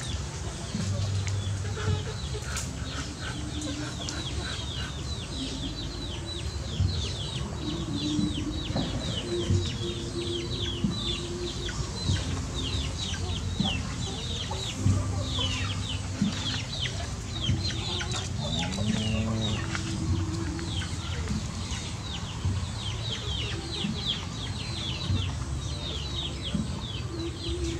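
Birds calling continuously: many short, high, falling chirps several times a second, with lower clucking calls and a rising call about 19 seconds in.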